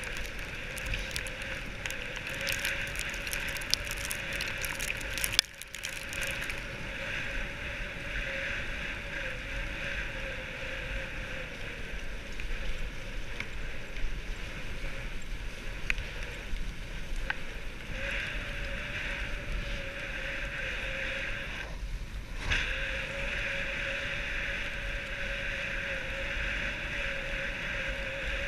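Dogsled runners sliding over packed snow, a steady hiss with scattered crackles in the first few seconds, with wind buffeting the microphone. The sound briefly drops out twice.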